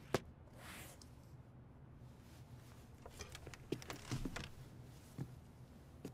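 Wooden chess pieces clicking and knocking on a board as they are moved: a sharp click at the start, a brief rustle of clothing, then a cluster of small clicks about three to four and a half seconds in and a couple of single ones after.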